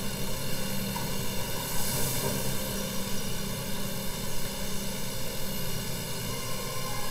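A motor running steadily with a continuous drone.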